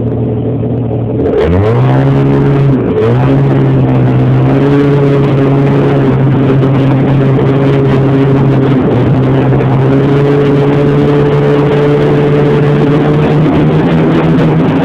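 Snowmobile engine accelerating: its pitch rises sharply about a second in, dips briefly, then holds steady at speed under a constant rush of noise.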